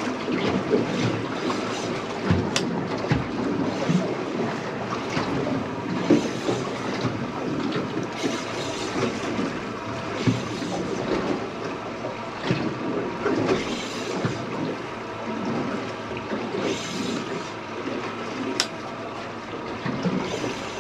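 Water slapping and lapping against a boat's hull, with wind buffeting the microphone and a few sharp knocks on the boat.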